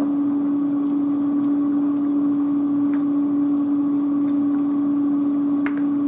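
A steady low-pitched hum from a running kitchen appliance, over the soft bubbling of a pot of dirty rice coming to a boil as it is stirred, with a couple of light clicks of the spoon against the pot.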